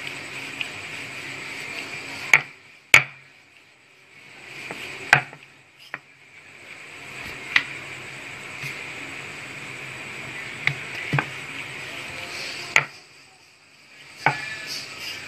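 Rolling pin knocking and clacking against a round wooden board as thin dough is rolled out: sharp single knocks every second or two, over a steady background hiss.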